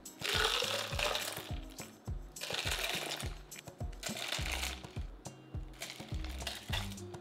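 Iced horchata poured from a ladle into a tall plastic cup in several surges, the liquid splashing and ice clinking. Background music with a steady beat runs underneath.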